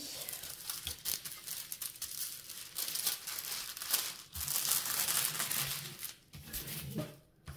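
Clear plastic protective film on a glue-coated diamond painting canvas crinkling and crackling as it is lifted and peeled back from the sticky surface, with two brief pauses near the end.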